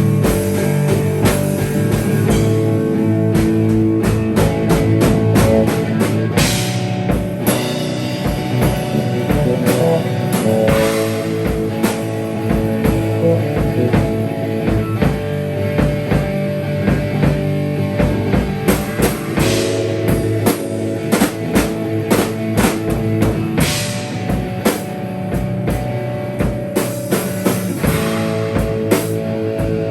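Rock band improvising on drum kit and electric guitar: busy drumming over sustained guitar notes, loud and without a break.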